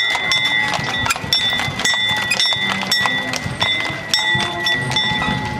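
Horses' hooves clip-clopping on asphalt as a horse-drawn fire wagon passes, with a bell ringing, struck over and over.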